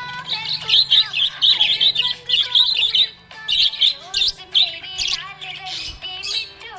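Budgerigar chirping: a fast run of short, high chirps for the first three seconds or so, then more spaced-out chirps and warbles.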